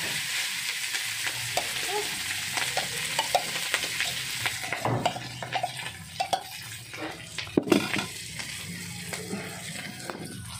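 Leftover cooked rice going into hot oil and browned garlic in a wok, sizzling, with a metal spoon knocking and scraping against the bowl and pan. The sizzle is strongest at first and dies down about halfway through, while the knocks and scrapes carry on.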